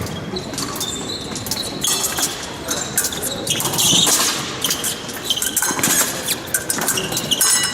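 Épée bout in progress: fencers' shoes squeaking and stamping on the piste, with many sharp clicks and clatters from the footwork and blade contact.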